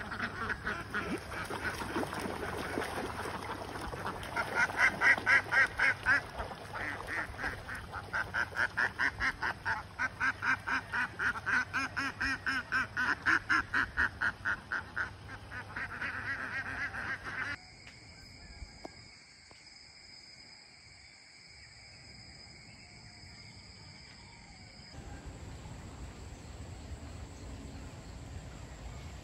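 A flock of domestic ducks quacking in a rapid, continuous chatter of several calls a second, which stops abruptly about seventeen seconds in. After that comes a much quieter stretch with a steady high-pitched whine, then a faint even hiss of outdoor background.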